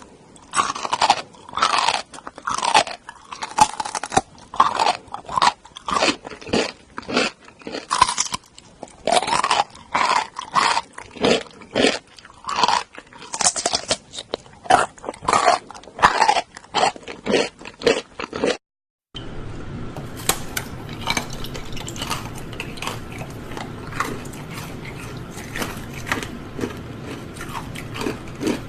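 Close-up crunchy chewing and biting of food, loud and irregular. About eighteen seconds in it cuts off, and lighter clicks over a steady hiss follow.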